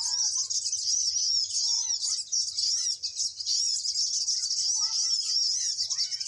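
Small songbirds chirping: a continuous, rapid series of high-pitched, repeated twittering notes, with a few scattered lower whistled notes from other birds.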